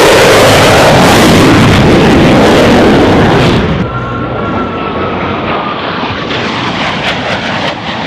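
Aircraft passing low and very loud in a dense, rushing roar. About four seconds in, the sound drops abruptly to a quieter, duller aircraft engine noise with a faint, slightly falling whine.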